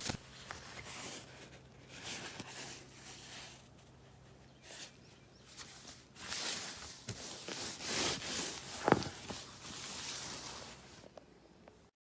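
Irregular rustling and scuffing noises of movement, with a few small clicks and a sharper tick about nine seconds in, over a faint steady hum; the sound cuts off abruptly near the end.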